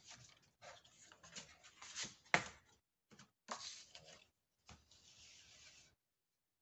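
Cardstock rustling and sliding on a paper trimmer as the sheet is positioned, with light knocks and one sharp click about two seconds in, then a short steady hiss of paper or the trimmer sliding near the end.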